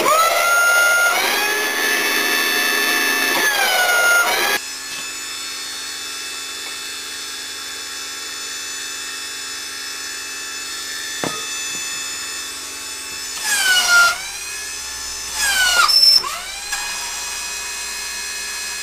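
Electric motor and hydraulic pump of a homemade press power pack running with a steady whine. It is louder for the first four and a half seconds, then runs quieter and steady. Its pitch dips sharply near the start and twice more near the end.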